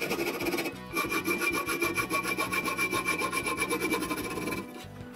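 Hand hacksaw cutting a small metal piece clamped in a bench vise, the blade sawing back and forth steadily, with a high steady ring through the middle. The sawing breaks off briefly twice, about a second in and near the end.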